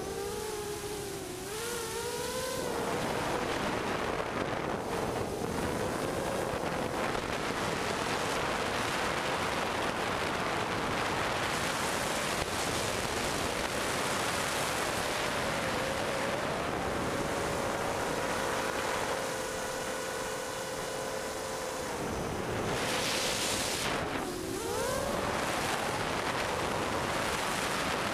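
Mini quadcopter's motors and propellers whining in flight, the pitch dipping and climbing again with the throttle a couple of times, over a steady rush of wind on the onboard camera's microphone.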